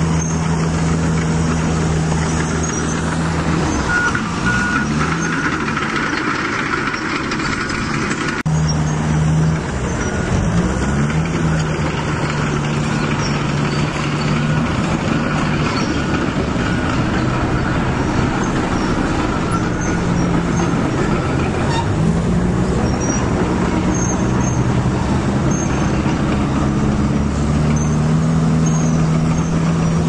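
Steady diesel-engine sound with a deep, even hum that briefly shifts pitch several times, as when revving, over a fainter whine from the Huina 1550 RC excavator's electric motors as its arm and grapple move.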